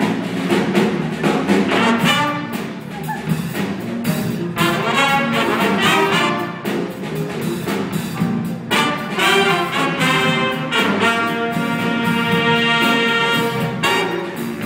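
Jazz big band playing: saxophones, trombones and trumpets over piano and drum kit, with the horns holding a long chord near the end.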